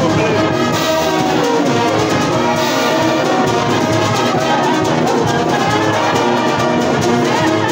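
School brass band of cornets, trombones, euphoniums and tubas playing a piece together under a conductor, loud and steady, with several parts sounding sustained notes at once.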